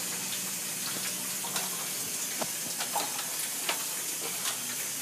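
Water leaking from a GE hybrid heat-pump water heater: small irregular drips and trickling over a steady hiss.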